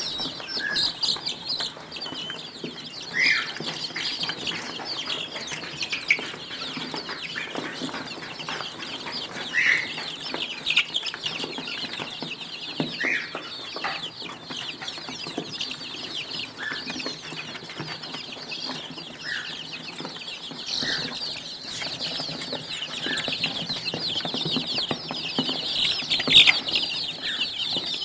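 A flock of five-week-old Golden Misri chicks peeping continuously, a dense chorus of short high cheeps, with a louder, lower call breaking out every couple of seconds.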